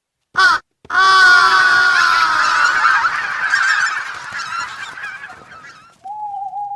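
A flock of birds calling all at once, a loud dense clamour that slowly falls in pitch and fades over about four seconds, after one short call about half a second in. A held woodwind note starts near the end.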